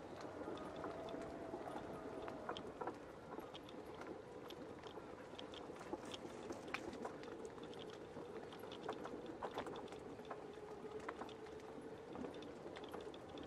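Footsteps on a gravelly country lane with small irregular clicks and knocks from a handheld camera bumping while walking, over a faint steady hum.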